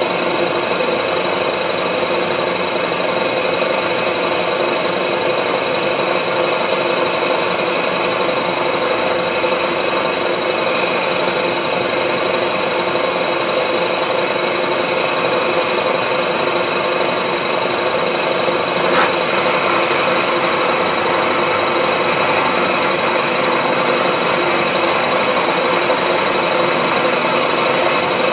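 Milling machine running steadily under power, a constant machine whine made of many fixed tones, with one short click about two-thirds of the way through.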